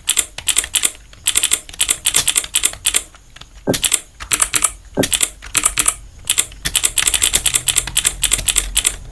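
Typing on a computer keyboard during a timed typing test: quick runs of key clicks with brief pauses between words.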